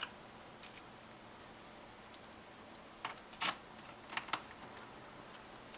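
Scattered light clicks and taps of a screwdriver and screws on a laptop's plastic base as the hinge screws are driven in, with a sharper click about three and a half seconds in.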